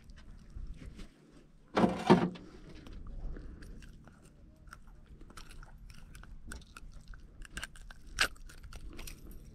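Metal clicks, ticks and scrapes of long-nose pliers and a spoon lure's hooks as the lure is worked out of a caught fish's mouth, with a louder double knock and rustle about two seconds in.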